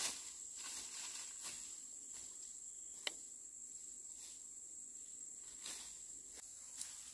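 Insects droning at one steady high pitch, with footsteps crunching through dry bamboo leaves and twigs, and a sharp snap about three seconds in.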